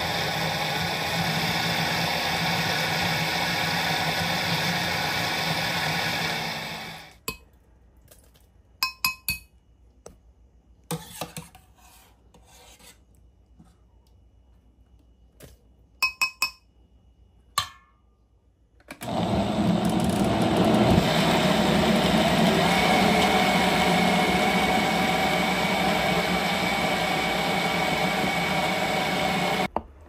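Countertop blender running, pureeing a thick vegetable mixture, until it stops about seven seconds in. A few scattered clicks and knocks follow. The blender starts again at about nineteen seconds and runs until it cuts off just before the end.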